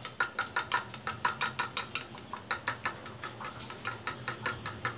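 A fork beating a raw egg in a ceramic bowl, clicking against the bowl's side in quick, even strokes, about seven a second.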